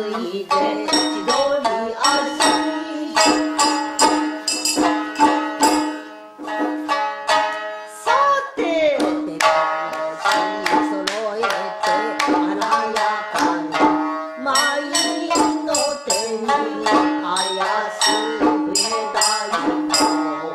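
Traditional Japanese geisha party music: a shamisen playing quick plucked notes with drum accompaniment and a singing voice.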